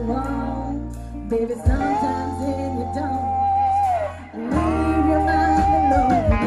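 Live band playing a cover song: a singer holding long notes over guitar and a steady bass line.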